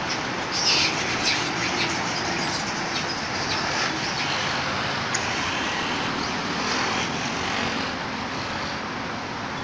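Steady road traffic noise, easing a little near the end, with a few short high chirps in the first two seconds.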